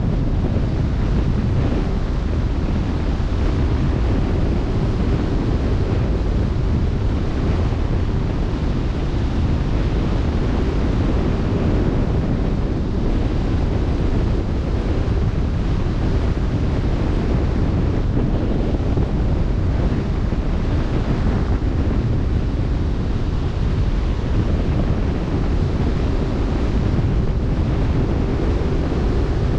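Steady wind buffeting the microphone over the continuous rush of open-sea waves, with a faint steady hum underneath.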